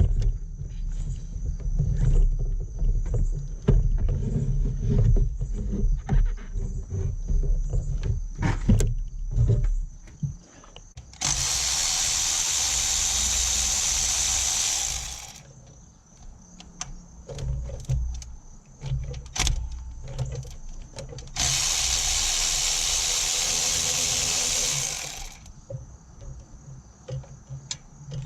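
Hand-tool work on an engine: irregular knocks and clicks, then two steady hissing blasts of about four seconds each, like an aerosol cleaner or air blowgun spraying.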